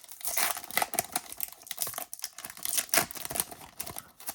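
Foil wrapper of a trading-card pack crinkling as it is handled: an irregular run of sharp crackles and rustles.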